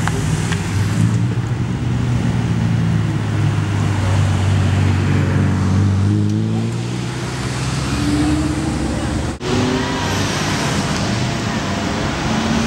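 Exotic sports and luxury cars driving slowly past one after another, including an Aston Martin, a Lamborghini Gallardo and a Rolls-Royce Phantom, their engines running at low revs with the note rising and falling as each goes by. The sound breaks off abruptly about nine seconds in.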